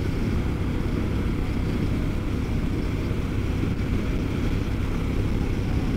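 Motorcycle running at high speed, around 100 km/h with three riders aboard: a steady low engine and road rumble mixed with wind noise on the rider's microphone.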